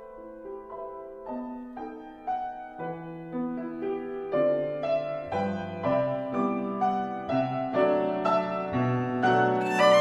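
Gentle solo piano background music, a flowing line of held notes that grows louder, with lower bass notes joining about three seconds in.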